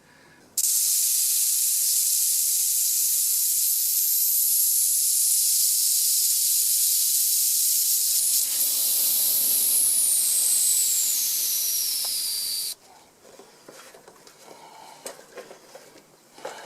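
Air rushing out of a bicycle tyre's inner tube through the open valve as the tyre is deflated: a loud, steady high hiss, with a faint whistle falling in pitch as the pressure drops. It cuts off suddenly near the end, and faint handling noises of the tyre follow.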